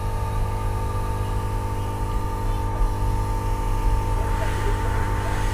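Hot-air gun running steadily with an even motor-and-fan hum, warming a phone's back glass to soften the adhesive before it is pried off.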